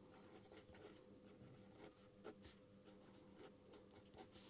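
Faint handwriting: short scratchy strokes of writing by hand, scattered irregularly, over a steady low hum.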